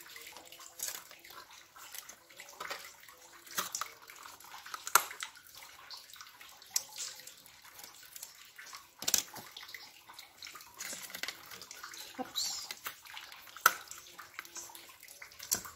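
Clear plastic lids being pressed and snapped onto plastic pudding cups one after another: irregular sharp plastic clicks and crackles, roughly one a second.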